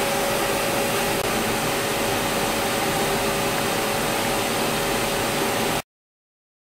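CNC milling machine running: a steady hiss with a few steady humming tones underneath, cutting off abruptly near the end.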